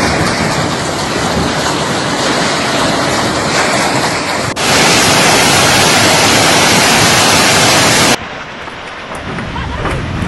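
Heavy hailstorm: a dense, steady rush of hail and rain coming down. It cuts abruptly louder about four and a half seconds in and abruptly quieter about eight seconds in.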